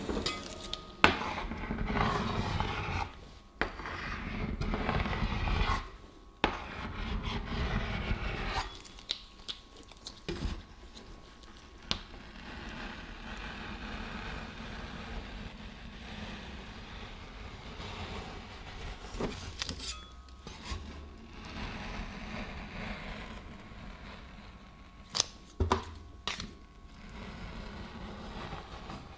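Metal spatulas scraping across a cold steel ice cream roll pan, with sharp taps and clinks of the blades on the metal. The first eight seconds or so are louder and fuller; after that the scraping is quieter, with a few louder knocks near the end.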